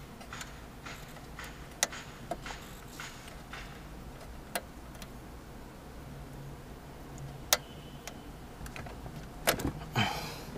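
Scattered sharp clicks and knocks of a screwdriver and plastic dashboard trim being handled while a car head unit is taken out, the loudest two near the end, over a faint low hum.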